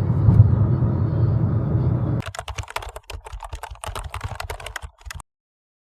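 Steady low rumble of a car interior on the move, then about three seconds of rapid, irregular clicking like keyboard typing, which cuts off abruptly to silence.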